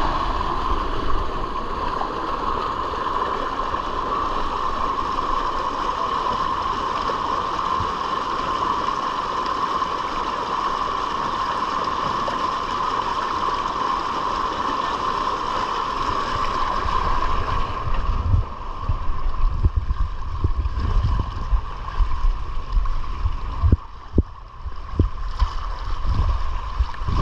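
Water rushing and splashing over a camera as it rides down an open fibreglass waterslide: a steady, loud rush for about the first two-thirds. After that it turns uneven, with low rumbles and knocks as the rider slides down the flume.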